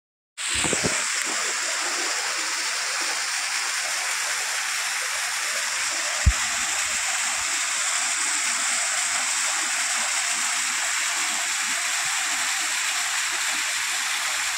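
Small waterfall splashing down a rock face, a steady rushing of falling water, with one brief knock about six seconds in.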